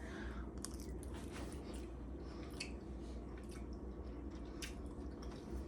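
Quiet chewing of a mouthful of chicken salad, with a few faint wet mouth clicks.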